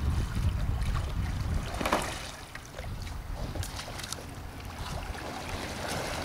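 Water splashing and sloshing around a Greenland-style sea kayak and its paddle as the kayak is rolled back upright, with a louder splash about two seconds in, then lighter drips and small splashes. A low rumble of wind on the microphone runs through the first two seconds.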